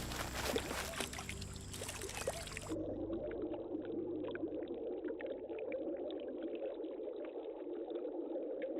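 Stream water trickling and splashing, with small clicks and ticks. About three seconds in it changes abruptly to a duller, more muffled water sound.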